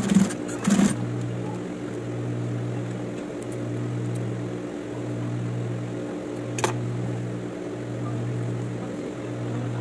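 Industrial sewing machine's motor humming steadily while idle, with a couple of short louder bursts in the first second and a single sharp click about two-thirds of the way through.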